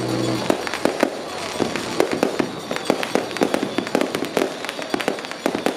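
A long string of firecrackers popping in rapid, irregular cracks. A steady low tone stops about half a second in.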